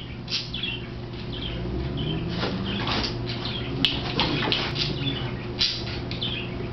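Maltese and pit bull scuffling in play on carpet, with short high chirps recurring about every second, over the steady hum of an electric floor fan.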